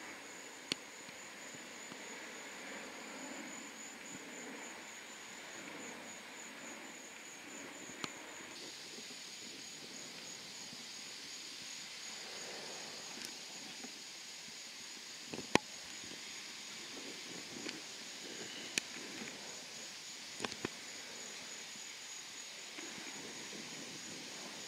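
Insects chirping: a steady high, finely pulsing trill over a faint hiss, with a few sharp clicks, the loudest about midway.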